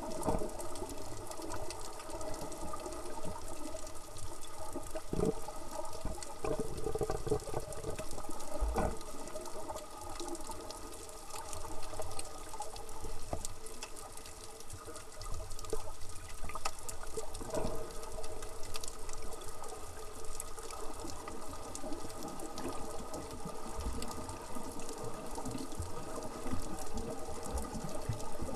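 Underwater sound picked up by a camera's microphone: a steady droning hum over constant water crackle, with a few soft low thumps.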